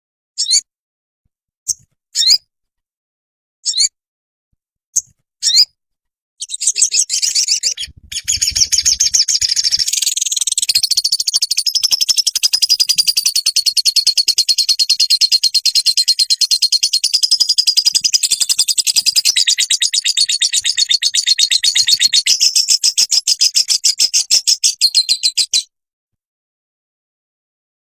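Sogon sunbird song: a few short, sharp high chirps, then from about six seconds in a long, very fast, high-pitched trill of rapidly repeated notes that stops abruptly a couple of seconds before the end.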